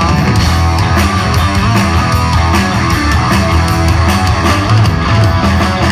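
Heavy metal band playing loud live, with distorted electric guitars, bass and steady drum hits in an instrumental passage without vocals.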